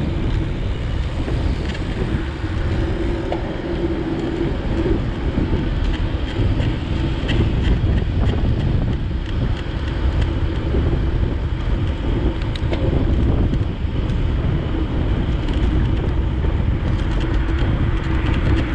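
Wind buffeting the microphone of a camera carried on a moving bicycle, over a steady low road-and-traffic rumble. A faint steady hum comes and goes underneath.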